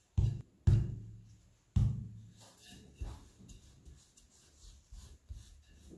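Wooden rolling pin pressing and rolling laminated croissant dough on a steel worktop, making dull, booming thumps at uneven intervals. The loudest come in the first two seconds, and weaker ones follow.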